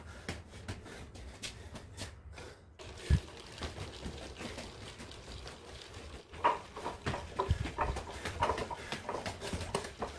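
Footsteps and shuffling on tiled stairs as a worker carries a heavy sack down, with a single thump about three seconds in and a run of quick irregular knocks and scuffs from about six seconds in.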